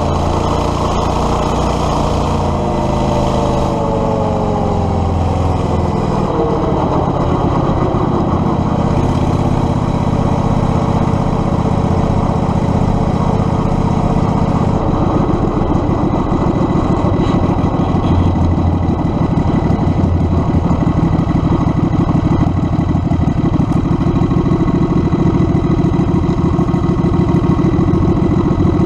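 Predator 670cc V-twin go-kart engine running. Its pitch falls over the first few seconds as it slows, holds steady, then settles into a slower, even pulse about halfway through.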